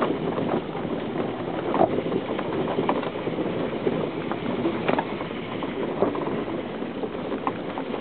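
Car driving over a rough dirt track, heard from inside: a steady rumble of engine and road noise with a few scattered knocks and rattles.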